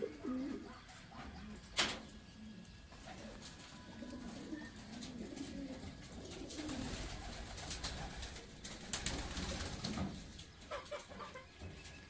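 Domestic pigeons cooing repeatedly in low, wavering calls. A single sharp knock sounds about two seconds in, and a stretch of rustling comes in the second half.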